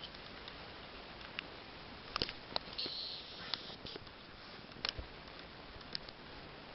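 Scattered sharp clicks and light scrapes of hands working a skinned weasel pelt onto a stretcher board, with a brief rustle about three seconds in.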